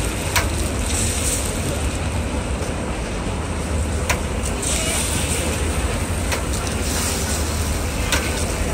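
Eggs frying on a hot flat-top griddle, a steady sizzle over a low rumble, with a few short sharp clicks.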